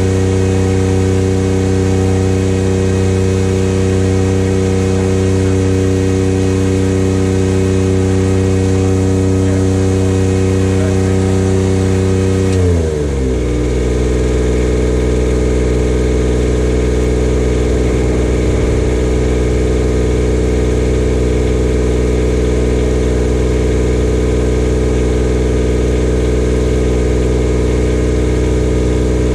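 Engine-driven welding machine running steadily at weld speed under the crackle of stick welding; about 13 seconds in, once the arc stops, its engine speed falls and it settles into a steady idle.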